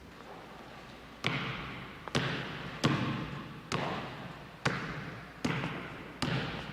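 A series of sharp hits or cracks, about one a second, each trailing off in a fading hiss, over a low steady hiss.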